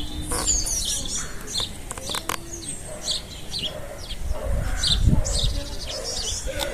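Small birds chirping and twittering, many short high calls one after another, with a few sharp clicks about two seconds in.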